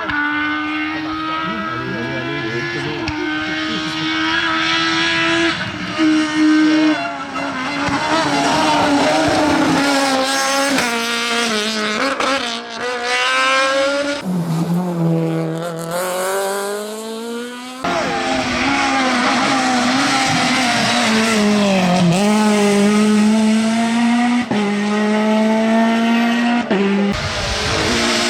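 F2000-class rally cars with two-litre naturally aspirated engines, driven hard. The engine note climbs and drops again and again with each gear change and lift. Near the middle, after a long drop in pitch and a rise, the sound jumps abruptly to another car, and again near the end.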